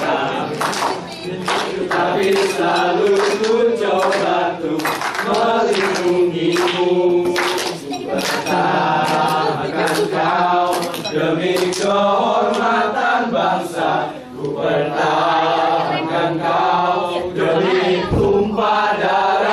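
A group of men singing together in chorus, a chant-like song, with sharp rhythmic hits through it, most frequent in the first half.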